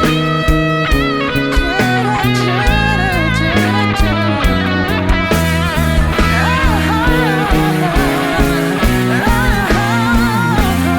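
Rock band playing an instrumental break: a lead guitar line with bent, wavering notes over steady bass and a regular drum beat.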